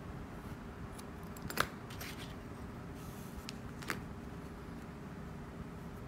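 Small scissors snipping through yarn, two sharp snips about a second and a half and four seconds in, over quiet handling of yarn and a crochet hook.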